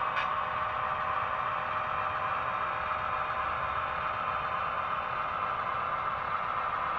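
Model diesel locomotive's sound decoder playing a steady diesel engine sound through its small speaker as the train moves slowly, thin and without deep bass. A brief click comes just after the start.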